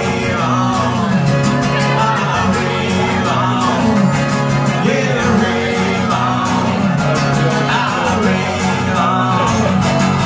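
Live acoustic country-folk song: two acoustic guitars strummed and picked with a man singing into a microphone.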